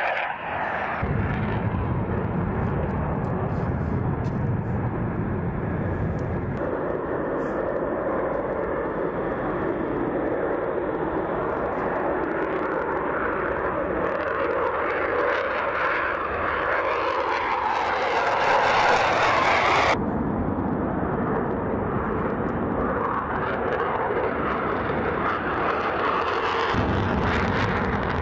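F-15 Eagle fighters taking off in afterburner, their jet engines giving a continuous heavy roar that changes abruptly several times where takeoffs are cut together. The roar grows louder and brighter to its peak as one jet passes close, then cuts off suddenly about two-thirds of the way through.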